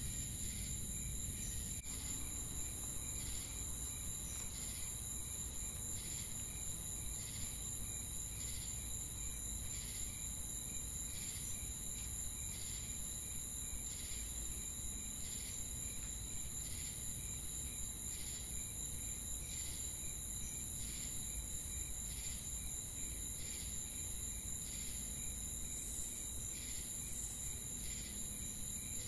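Steady chorus of crickets: a continuous high trill, with a pulsed chirp repeating about once a second.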